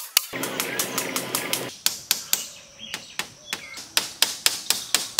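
Hammer blows on bamboo, a quick, steady run of sharp taps about three or four a second.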